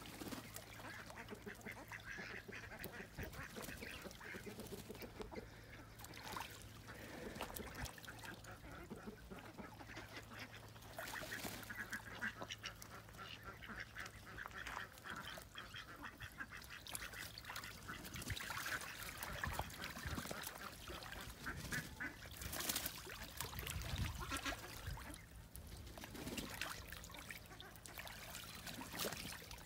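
Domestic ducks quacking now and then while they swim and dabble, with light splashing of water as they dip their heads and bills into a small pool.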